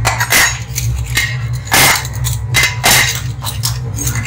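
Metal spoons clinking sharply against ceramic plates and each other as they are laid out, about half a dozen ringing clinks spread unevenly, over a steady low hum.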